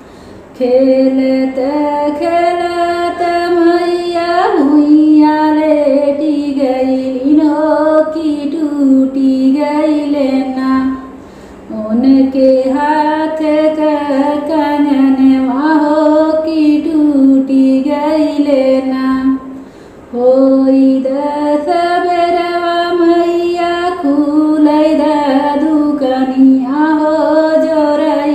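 A woman singing a Bhojpuri pachra devi geet unaccompanied, in long held, wavering phrases. She breaks briefly for breath about eleven and twenty seconds in.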